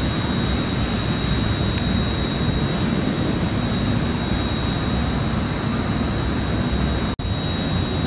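Steady rushing outdoor noise at an even level, with a thin high whine running through it and a brief break near the end.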